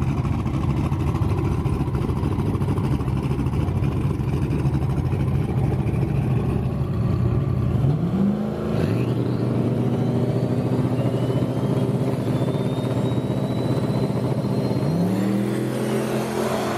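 Turbocharged 4.8 L LS V8 in a Fox-body Mustang drag car idling with a steady, loud lope. Its pitch rises briefly about halfway through, then rises again near the end and stays up as the car pulls forward.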